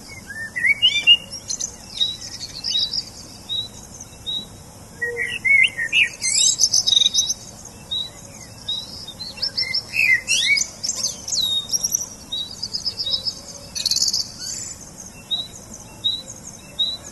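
Birds chirping and singing: many short, high calls overlapping throughout, busiest around six and ten seconds in.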